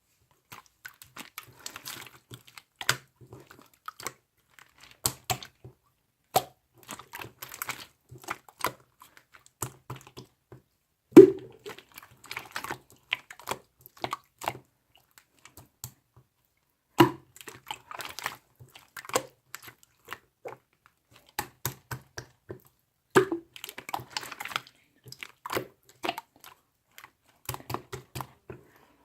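Clear slime being squished, folded and pressed by hand: a steady stream of small wet clicks and crackles, with a louder air-bubble pop roughly every six seconds.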